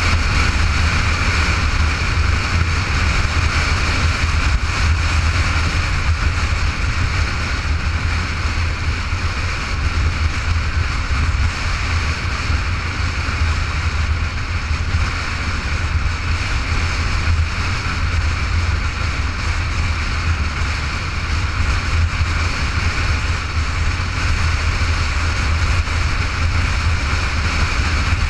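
Motorcycle cruising at steady road speed: a steady low engine drone mixed with constant wind rush on the microphone.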